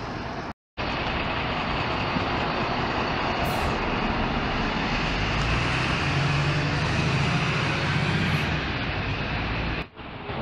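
City buses and traffic running, a steady noise that breaks off briefly just after the start. A bus engine's low hum grows stronger from about halfway through until shortly before the end.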